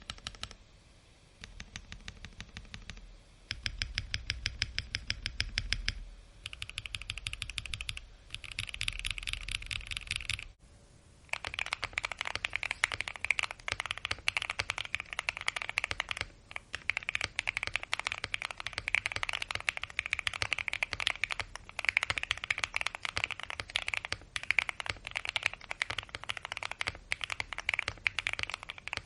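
Fast typing on a Bakeneko65 mechanical keyboard with lubed KTT Mint linear switches and PBT keycaps, in the stock build (FR4 plate, gasket mount). About ten seconds in there is a brief pause, then typing continues on the modded build, which has PE foam, a tape mod and butyl rubber dampening; its keystrokes sound brighter and clickier with less low thud.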